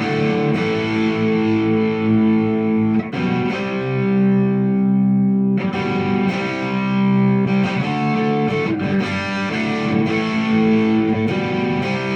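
Ibanez Prestige RG1070PBZ electric guitar played with distortion, held chords and notes left to ring and changing every second or two.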